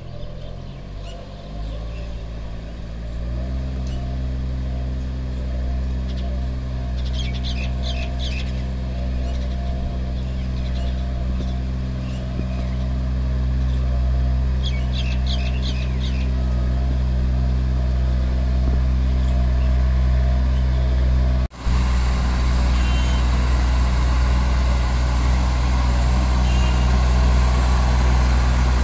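Tractor engine running steadily as it drives a boom sprayer, its pitch rising over the first few seconds and then holding; birds chirp briefly twice. About three-quarters through, the sound cuts abruptly to a second sprayer's engine, a high-clearance self-propelled sprayer, running louder and with more noise.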